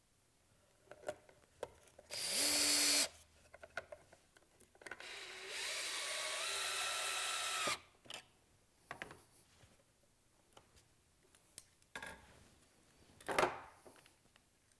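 A power drill/driver drives screws into wood to fasten a toggle clamp. There is a run of about a second about two seconds in, rising in pitch as the motor spins up. A longer run of about three seconds follows, with a short burst near the end. Light clicks and knocks of handling fall between the runs.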